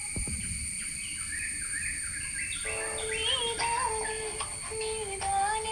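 Birds chirping in short rising calls. About two and a half seconds in, a tinny melody starts up from the phone as the call rings: a caller tune playing in place of the ring tone.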